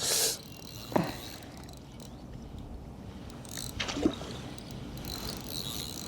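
A fishing reel being wound in while playing a hooked carp, a mechanical ratcheting whir, with a brief rush of noise at the start and a couple of short knocks.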